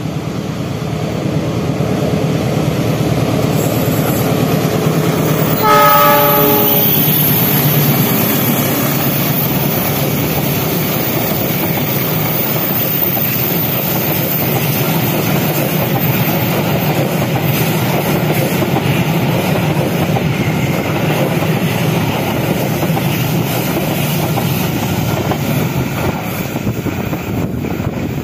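Passenger train passing behind a diesel locomotive: the horn sounds once about six seconds in, then the coaches' wheels keep up a steady rolling clatter on the rails as the train goes by.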